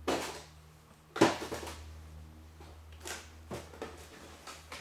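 A handful of short knocks and clatters from brake parts and tools being handled, the loudest about a second in.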